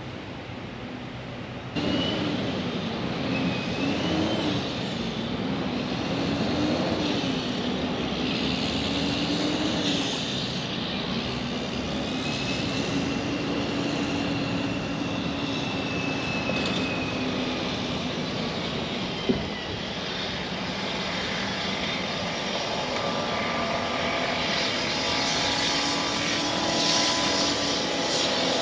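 A steady engine drone over road noise, its pitch wavering up and down, getting louder about two seconds in. There is a single sharp click about two-thirds of the way through.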